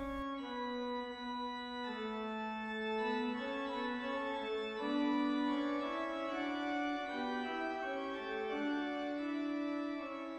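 Organ music: slow, held chords moving from one to the next every second or so.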